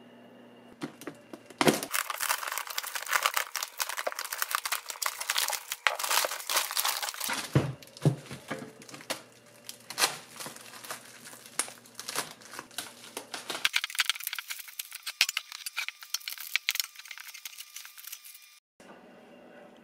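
Bubble wrap and plastic packing crinkling and tearing as it is pulled off a new motorcycle skid plate, a dense crackle full of sharp clicks that starts about two seconds in, thins out in the later part and stops shortly before the end.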